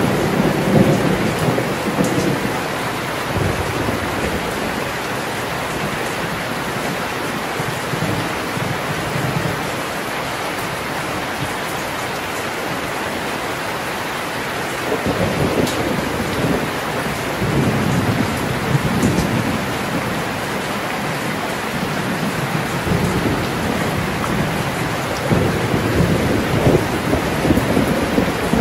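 Heavy rain pouring steadily, with low rolling thunder rumbling at the start, again about halfway through, and toward the end.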